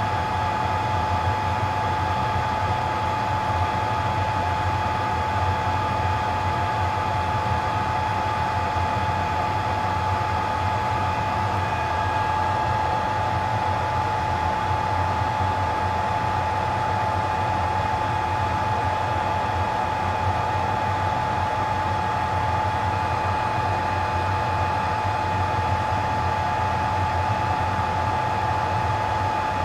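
Steady whir of a BGA rework station's hot-air blower, with a constant whine over a low hum.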